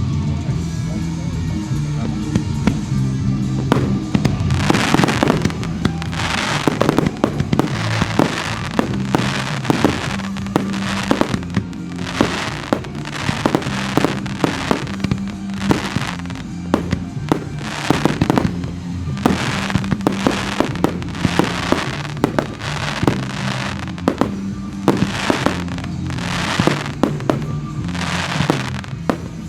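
Fireworks display: rapid, repeated bangs and bursts from aerial shells, starting about four seconds in and continuing densely, over a steady music soundtrack.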